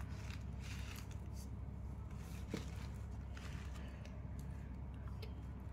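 Faint rustling and light ticks of thread being pulled and knotted against the pearl-and-gota bangle base, over a steady low background hum.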